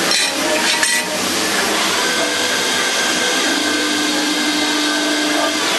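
CNC lathe turning a metal driver-bit blank: a steady machining noise with a high steady whine, and a couple of clinks in the first second.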